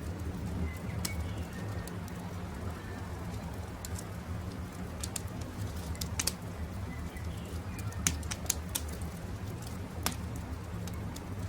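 Crackling campfire: sharp pops and snaps come at irregular intervals over a low steady rumble, with a few faint bird chirps.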